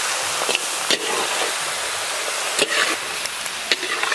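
Chicken pieces sizzling in masala in a large steel kadai as they are stirred and browned, with the metal spatula scraping and knocking against the pan about seven times.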